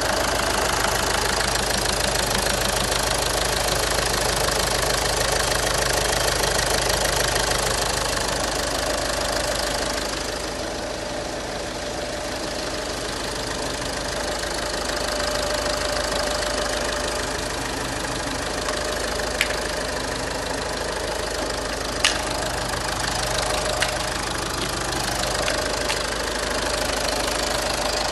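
Volkswagen Passat 2.0 TDI four-cylinder diesel engine idling steadily with diesel clatter, running just after a rebuild that followed a snapped timing belt. A few short sharp clicks sound in the second half.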